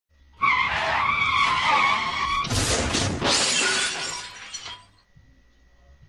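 An electric dirt bike crashing. A wavering high whine or skid lasts about two seconds, then a sudden loud crash and clatter trails off over about two more seconds.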